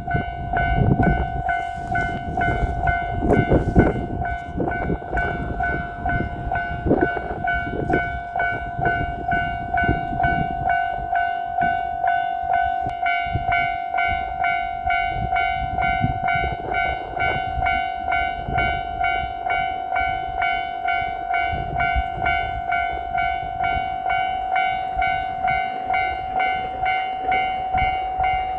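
Japanese level crossing's electronic warning bell ringing in a steady repeating pulse throughout. Under it, a JR Shikoku 7200 series electric train runs over the crossing with rumbling and wheel clatter, heaviest in the first half.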